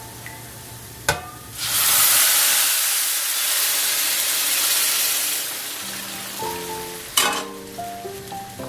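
Food sizzling in hot oil in a pan: a sharp click, then a loud hiss that starts suddenly and slowly dies down over about four seconds, with another click later. Soft piano music plays underneath.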